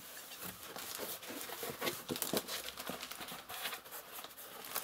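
Plastic stretch film crinkling and a cardboard box being handled as a parcel is unwrapped: an irregular run of rustles and small knocks.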